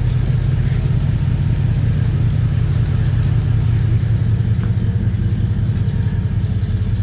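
A 1954 Chevy 3100 pickup's computer-controlled engine running steadily with an even, unchanging note: no more misfire, now that a wiring fault in the engine harness has been fixed.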